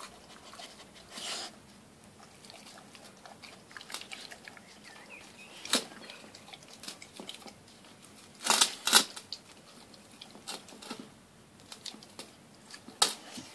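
A dog licking and chewing the last scraps of food out of a glass dish. Sharp clicks and knocks of the glass dish break in now and then, the loudest pair about nine seconds in.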